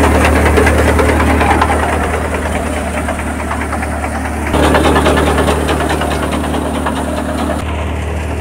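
Mustard threshing machine running steadily: a low engine hum under a dense, fast rattle of crop being threshed. The sound jumps abruptly in level about halfway through and again near the end.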